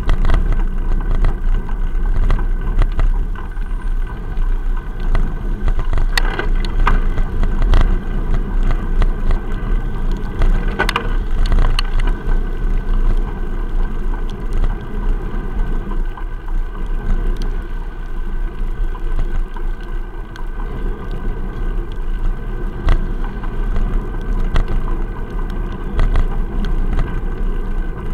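Steady low rumble and rattle picked up by an action camera sealed in a waterproof case on a moving bicycle's mount, from road vibration and wind, with a few sharp knocks along the way.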